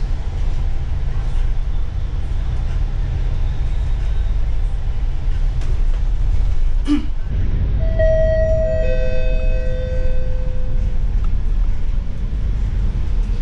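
City bus engine and road noise rumbling steadily inside the cabin. About eight seconds in, after a short knock, a two-note falling chime sounds, each note ringing out and fading over a couple of seconds.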